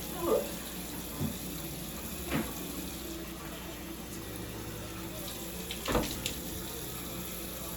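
Water running steadily from a tap into a sink, with a few brief sounds over it, the loudest about six seconds in.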